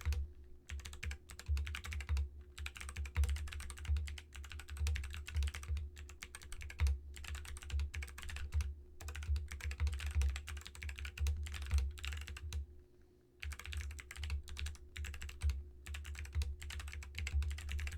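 Fast, continuous typing on a custom mechanical keyboard fitted with Bossi doubleshot PBT keycaps: a dense run of key clacks, with a brief pause a little past the middle.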